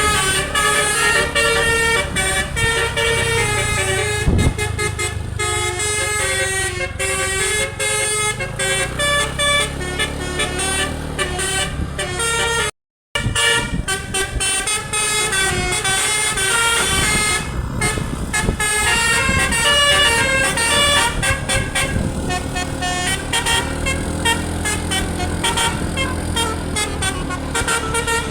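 Bus telolet musical air horn (DAV basuri type) playing a stepping multi-note melody over the low rumble of the bus engine. The sound cuts out completely for a moment about halfway through.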